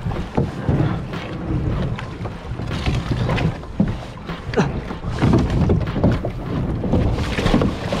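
Wind buffeting the microphone, with water sloshing and splashing around a plastic sit-on-top kayak as it is pushed off into choppy water; a leg pushing in the water splashes near the end.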